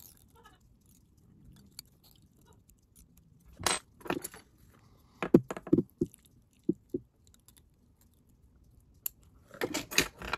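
Light handling noises at a fly-tying vise: scattered small clicks and rustles of fingers, thread and tools, in short clusters a few seconds apart while the head of the fly is finished with a half hitch.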